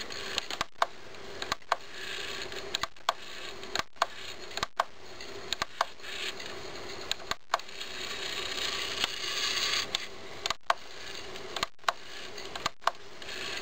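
Opened CD clock radio's disc drive running: a faint steady whir with many small sharp clicks at irregular spacing, about one or two a second.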